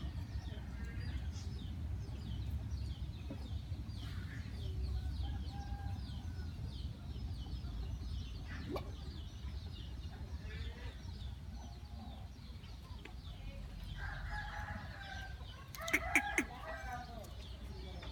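Chickens clucking on and off, with a rooster crowing near the end, over a steady low rumble.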